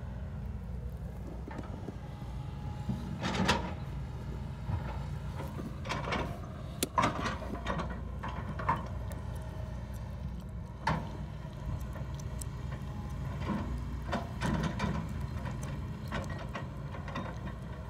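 Hitachi tracked excavator's diesel engine running steadily, with irregular clanks, squeaks and scrapes from the steel bucket dragging through loose dirt and from the steel tracks.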